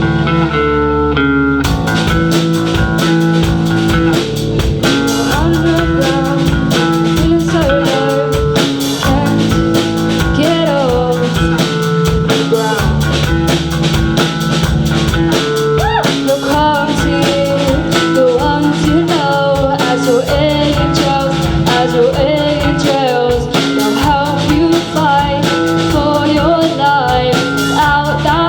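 Live band playing a blues-rock song on electric guitar and drum kit, with a singer. Held chords open it, the drums come in about two seconds in, and the sung line starts about eight seconds in.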